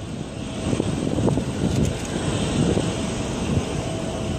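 Boeing 777-300 jet engines on climb-out after takeoff, heard from the ground as a steady low rumble with a hiss on top that swells in the middle.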